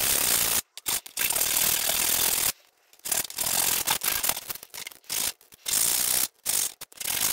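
A VW air-cooled engine's camshaft thrust bearing being rubbed by hand back and forth on 150-grit sandpaper over a flat steel sheet, a sanding sound in runs of strokes broken by short pauses, the longest about two and a half seconds in. The sanding takes material off the bearing's thrust face so that the camshaft will have endplay and spin freely.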